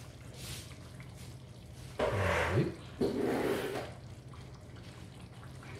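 Pieces of rabbit liver tipped from a bowl into a frying pan of simmering rabbit: two short wet sounds about two and three seconds in, over a steady low hum.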